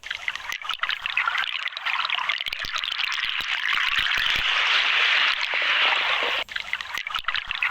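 Water trickling and splashing, steady throughout, with a brief dip about six and a half seconds in.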